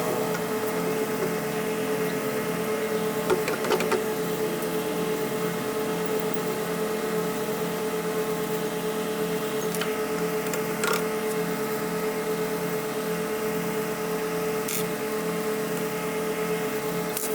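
Antique Thor bench grinder's electric motor running steadily with an even hum, a few faint clicks over it.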